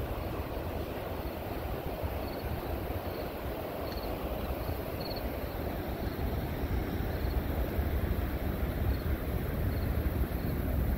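Steady, rushing roar of the Horseshoe Falls at Niagara, with a heavy low rumble and wind buffeting the microphone. Faint high chirps come and go a few seconds in.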